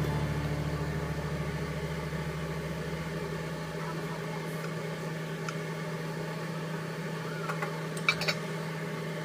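A steady mechanical hum, with background music fading out over the first few seconds; about eight seconds in, a stainless steel lid clinks a couple of times as it is set on a saucepan.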